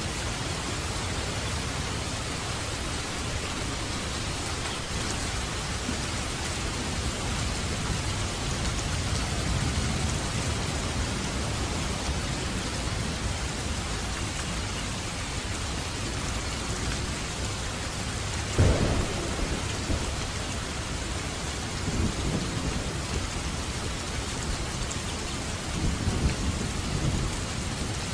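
Heavy rain falling steadily, with a sharp thunderclap about two-thirds of the way through and lower rolling rumbles of thunder after it.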